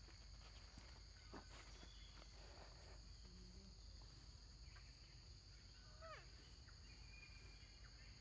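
Near silence: a faint, steady high insect drone of the forest, with a few soft clicks and one short falling call about six seconds in.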